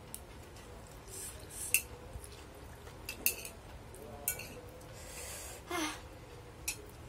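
A metal spoon and chopsticks clink against a plate about four times in sharp taps while saucy instant noodles are eaten. Between the clinks come close mouth sounds of sipping from the spoon and eating.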